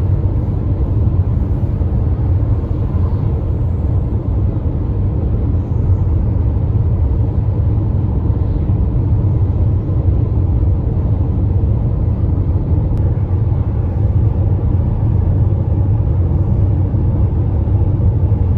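Steady low rumble of a car driving along the road: engine and tyre noise with no change in speed.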